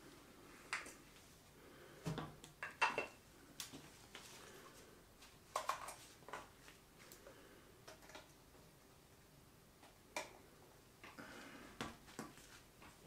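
Camera gear handled in gloved hands: a lens and a camera body with a metal mounting plate give a scattering of sharp clicks and light metallic clinks, some seconds apart, with faint rustling between.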